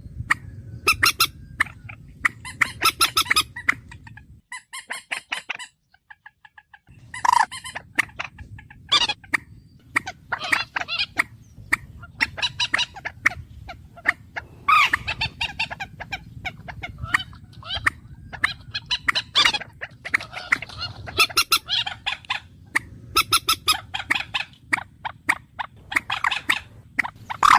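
A bird calling over and over in short, loud bursts of rapid pulsed notes, one burst every second or two. The background hum drops away for about two seconds near the start.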